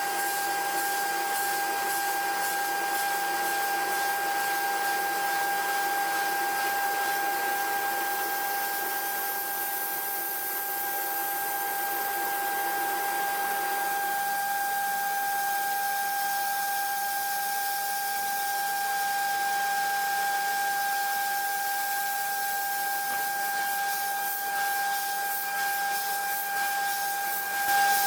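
CNC milling machine roughing a mold block: a steady high-pitched whine from the spindle and cutter over a constant hiss.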